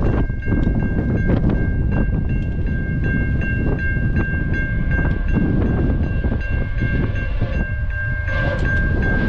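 Level-crossing warning bell ringing steadily with rapid, evenly repeated strokes, over a continuous low rumble.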